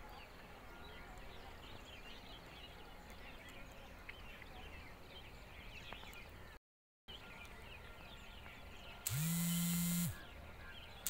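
Faint outdoor ambience with many small bird chirps, the sound cutting out completely for half a second near the middle. About nine seconds in, a much louder buzzing tone sweeps quickly up in pitch, holds steady for about a second, and stops.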